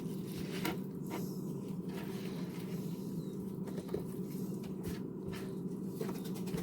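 Knife cutting lettuce on a cutting board: scattered, irregular taps and crisp crunches, over a steady low hum.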